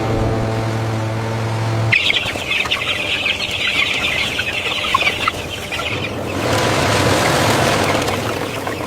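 A steady low mechanical hum with overtones cuts off about two seconds in. A dense flock of chickens clucking and peeping follows and fades after about four seconds into an even rushing noise.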